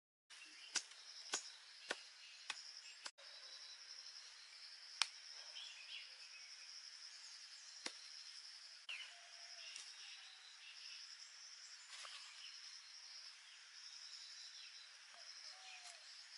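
Insects chirring steadily at a high pitch, with a few sharp clicks in the first few seconds and faint rustling of soil and grass being handled.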